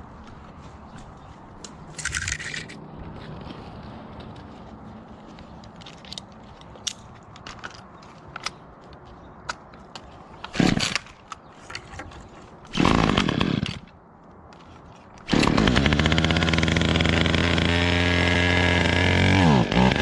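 Two short bursts from a chainsaw engine, about eleven and thirteen seconds in, the second dropping in pitch as it falls off. From about fifteen seconds in, loud electronic music with a heavy, stepping bass line takes over.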